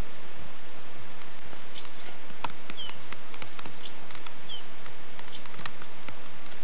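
Steady hiss with scattered faint clicks and two short, high bird-like chirps a little under two seconds apart.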